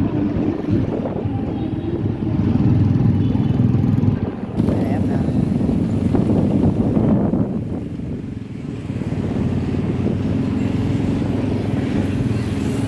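Crowd chatter mixed with a steady rumble of motorbike traffic, with no distinct firework bangs standing out.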